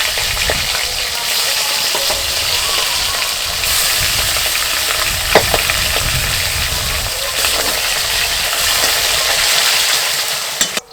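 Food frying in hot oil in a pan, a steady loud sizzle, with one sharp clink of a utensil about halfway through; it stops suddenly at the end.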